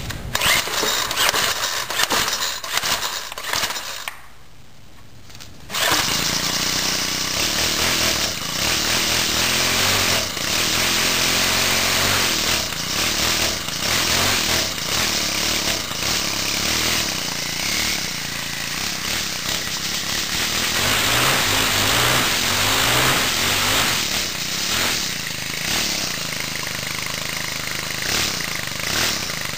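Cub Cadet 41cc four-stroke string trimmer engine being cold-started: a few seconds of uneven starting attempts, a drop to quiet for about two seconds, then it catches about six seconds in and keeps running steadily as it warms up.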